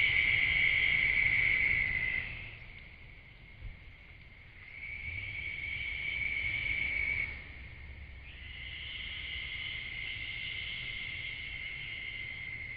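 An animal's steady, high-pitched trilling call, given three times in long stretches of a few seconds each, with short gaps between.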